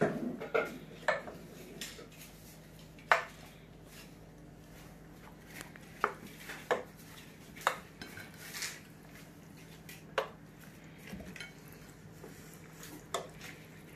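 A utensil clinking and knocking against the cookware while stirring chicken, bacon and spring onions into barbecue sauce: about ten irregular clinks, the loudest about three seconds in.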